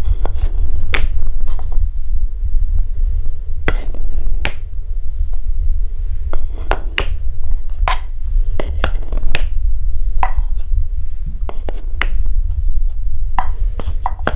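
Colored balls rolling down a wooden marble run, with irregular sharp clicks and clacks as they knock against the track and each other, a few per second, over a steady low rumble.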